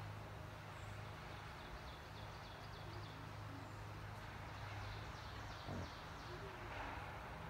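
Quiet outdoor ambience with a steady low hum and faint high bird chirps; about three-quarters of the way through, one short low grunt from a pig rooting in the dirt.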